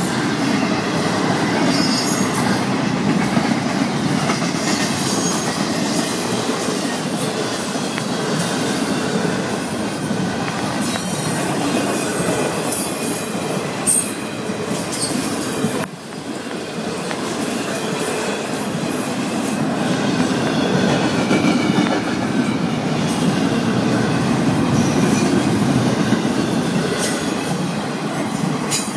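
Florida East Coast Railway intermodal freight cars rolling steadily past at close range: a continuous rumble and clatter of wheels on rail, with a few brief high wheel squeals.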